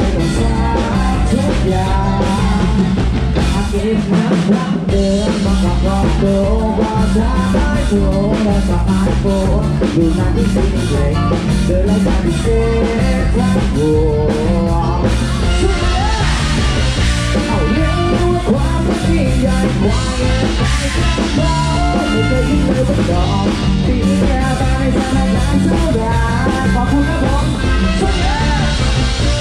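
Live Thai ramwong band playing an upbeat dance tune on a drum kit and hand drums with a steady beat, a male singer's voice over the band.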